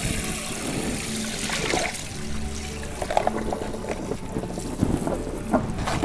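Tap water running onto shredded young papaya in a plastic colander over a stainless steel sink, the papaya being rinsed and squeezed by hand, with a few short plastic knocks in the second half. Background music plays underneath.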